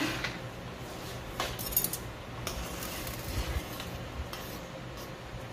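A spoon stirring ground-beef meat sauce in a stainless steel pan, scraping and clinking against the pan several times, with a couple of sharper metallic clinks.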